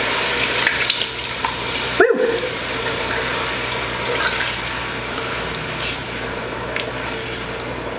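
Milk pouring into a hot butter-and-flour roux in an enameled pot, sizzling and splashing as a wooden spoon stirs it quickly. A short bark-like yelp cuts in about two seconds in.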